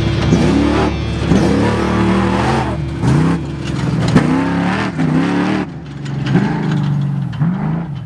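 Off-road race truck's engine revving hard again and again, its pitch sweeping upward about once a second as the throttle is worked, then fading away near the end.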